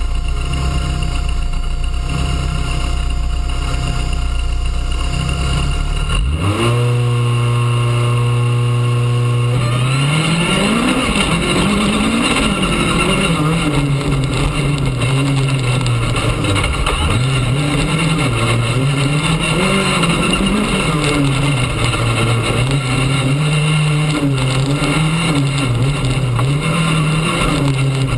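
Rally car engine heard from inside the car. It idles steadily at the start line, then at about six seconds is revved up and held at high revs for about three seconds. It then launches, and the engine pitch climbs and drops repeatedly as the car accelerates and shifts through the gears along a dirt track.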